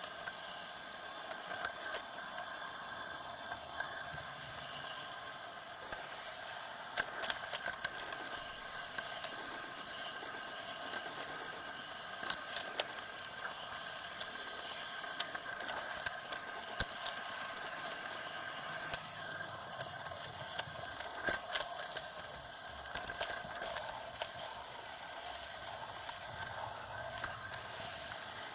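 Model train running along its track, heard from a camera riding on board: a steady running noise from the motor and wheels, with many irregular clicks and rattles.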